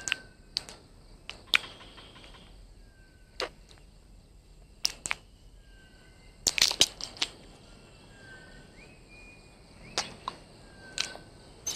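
Irregular sharp clicks, about a dozen, with a quick cluster about six and a half seconds in, over a faint wildlife background of brief high chirps.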